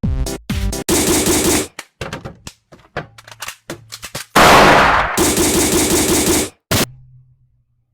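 Abruptly edited sound-effect clips: bursts of rapid rattling like automatic fire, a long loud noisy blast about four seconds in, then a faint low hum near the end.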